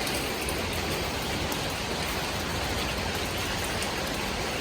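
Steady rain falling on the garden, an even hiss with a scatter of faint drop ticks.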